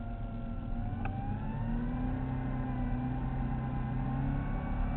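Speedboat engine running under power, its pitch climbing over the first two seconds as it accelerates, then holding a steady high speed.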